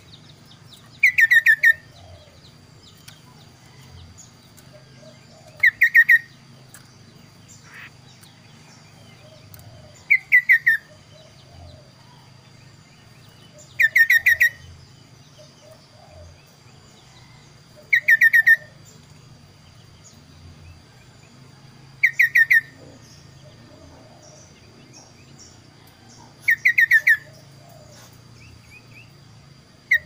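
Chestnut-capped babbler (kaso-kaso) singing: a short phrase of quick, falling whistled notes, repeated seven times at about four-second intervals.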